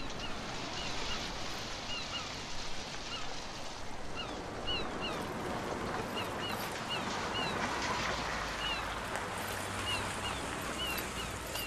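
Gulls calling again and again in short cries over a steady rushing wash of water and wind.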